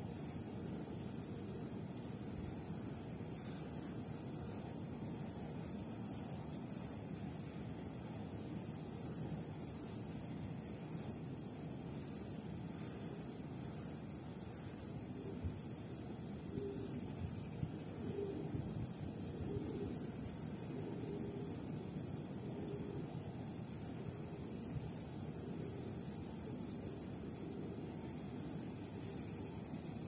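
Crickets chirping in a continuous high-pitched chorus, unbroken throughout, over a low rumble of background noise.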